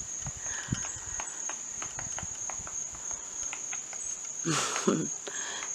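Insects droning on one steady high note, with faint irregular taps of a woodpecker pecking away unseen in the trees.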